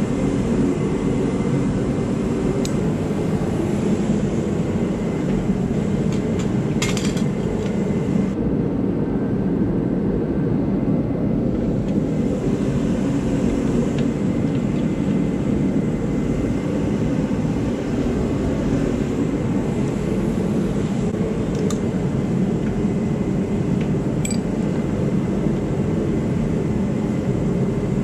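A steady low roar of background machinery runs throughout. A few light metallic clicks of wrenches on the kart's steel frame and bolts come and go over it.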